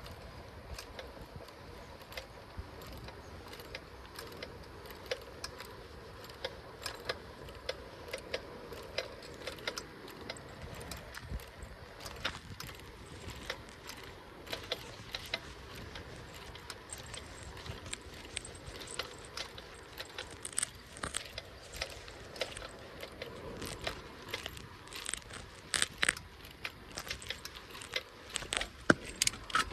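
Bicycle ridden along a road, rattling and clicking irregularly over a low rumble of tyre and wind noise; the clicks come thicker and louder near the end.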